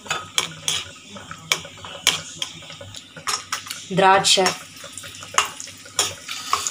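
Metal ladle clinking and scraping against a nonstick kadai with many sharp clicks, while cashews and raisins fry in sizzling ghee.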